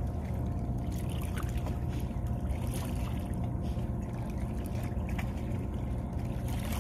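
A steady low engine drone runs throughout, with a few light splashes and knocks.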